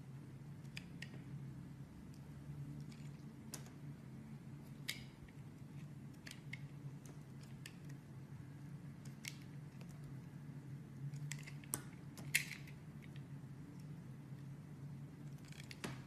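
Utility knife blade cutting thin slices off a bar of translucent layered soap: scattered short, crisp crackles and scrapes, the loudest cluster about twelve seconds in, over a steady low hum.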